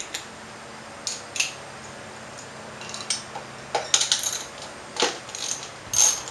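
Metal hand tools clinking and tapping against metal parts while a fastener is worked loose. The clicks are sparse at first and come faster over the second half.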